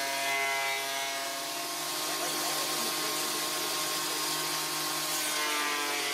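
Electric bench belt sander running, with a piece of wood held against the belt: a steady motor hum and whine under the rasp of sanding wood. The whine fades about a second in and rises again near the end.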